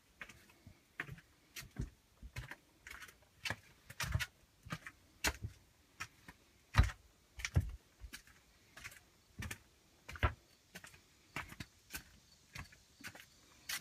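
Footsteps on a stone path at walking pace, about two sharp knocks a second, some with a low thud.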